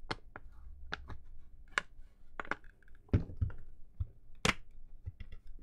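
Plastic latches of a PocketBook 614 e-reader's snap-on back cover clicking loose one after another as the cover is pried off, about six sharp clicks roughly a second apart.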